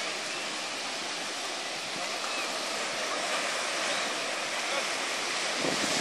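Ocean surf washing onto a sandy beach, a steady rush that swells a little past the middle. Near the end a lower, gustier rumble comes in.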